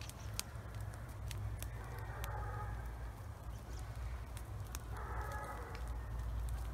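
Smouldering brush burn pile crackling, with sharp pops scattered throughout over a low steady rumble. Two pitched animal calls rise over it, one about two seconds in and a shorter one about five seconds in.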